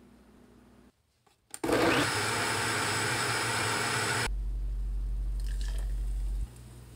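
Vitamix blender running at speed, blending a thick green smoothie, for about three seconds before it cuts off. A steady low hum follows for about two seconds and then stops.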